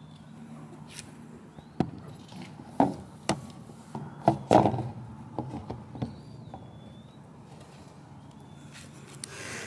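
A burst of irregular knocks and thumps, about a dozen over four seconds and loudest around the middle, over a steady low hum, with faint short high chirps recurring throughout.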